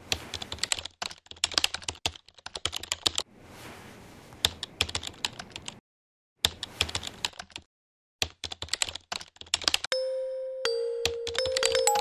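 Computer keyboard typing, rapid key clicks in bursts with short pauses, and a brief hiss between the bursts about three and a half seconds in. Near the end, chiming mallet-percussion music comes in.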